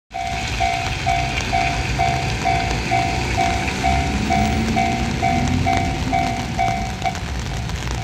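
Japanese railroad crossing warning bell ringing its rapid 'kan-kan', a little over two dings a second, while the barriers come down. The dinging stops about seven seconds in.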